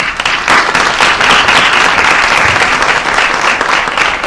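Many people applauding: a dense patter of hands clapping that starts abruptly and stays loud.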